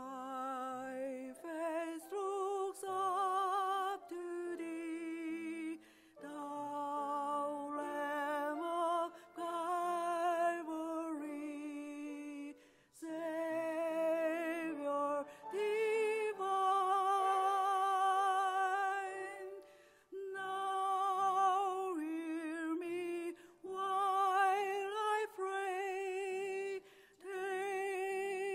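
A woman singing solo with a strong vibrato, in phrases of a few seconds each with short breaths between them.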